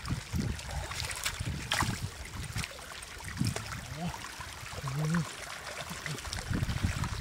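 Shallow muddy water trickling and splashing as live catfish are scooped by hand into a woven basket, with a few sharp wet slaps and splashes of the fish.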